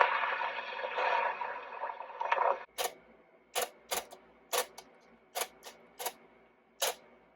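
1962 Edison Voicewriter dictation machine: a steady buzzing hiss that cuts off about two and a half seconds in, followed by a string of sharp mechanical clicks, about eight of them at uneven spacing, from its letter-begin, letter-end and correction marker keys.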